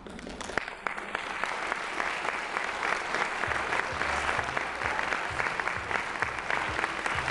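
Audience applauding: many hands clapping, breaking out suddenly and growing louder over the first couple of seconds, then holding steady.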